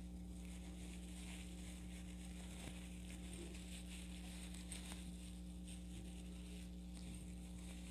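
Faint rustling and soft ticks of yarn and a crochet hook being handled while a loop of white yarn is formed, over a steady low electrical hum.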